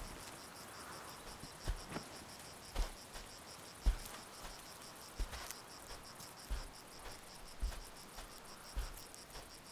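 An insect chirping in a steady, fast, even pulse, with soft low thumps about once a second.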